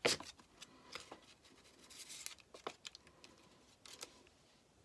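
Handling of a plastic stencil and a sheet of polymer clay as they are pulled apart and picked up: a sharp click at the start, then a few soft clicks and a short rustling scrape.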